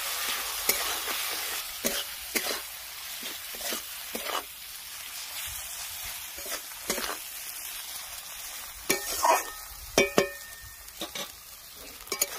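Onions, tomatoes and ground spice pastes sizzling in oil in an aluminium kadai as the masala is fried down, stirred with a spatula. A steady sizzle runs under irregular scrapes and knocks of the spatula against the pan, the loudest a few sharp knocks about nine to ten seconds in, one ringing briefly.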